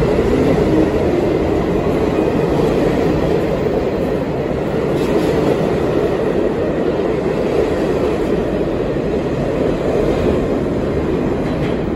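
R68 subway cars running along an underground station platform: a steady, loud noise of steel wheels on rails and car bodies.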